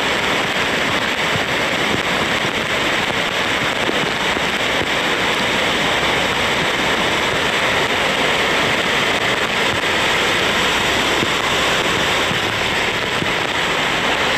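Steady, loud rushing hiss of heavy rain and floodwater, unchanging throughout.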